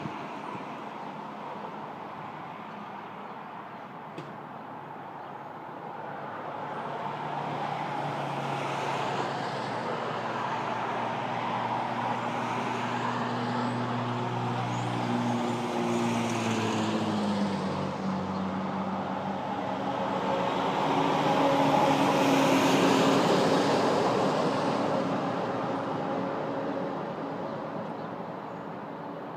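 Road traffic going past, with a slow rise and fall in level as two vehicles pass in turn. The engine pitch drops as the first one goes by; the second is louder.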